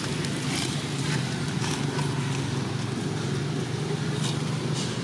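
A motor running steadily with a low, even drone, with a few faint ticks scattered over it.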